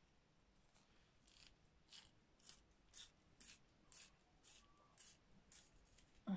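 Pastel pencil scratching across paper in short, regular strokes, about two a second, as fur is shaded in. It ends with a short sigh.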